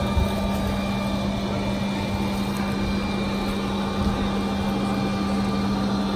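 A motor-driven machine drones steadily with a constant low hum over a noisy rush, loud and unchanging throughout.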